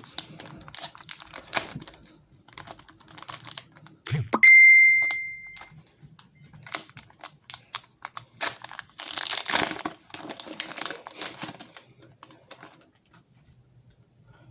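Foil Pokémon booster pack wrappers crinkling and tearing, with the clicking and rustling of cards being handled. About four seconds in, a single loud ding rings out and fades over a second or so.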